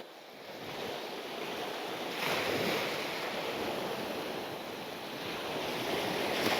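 Sea surf washing onto the beach: a steady rush of small waves that swells louder about two seconds in.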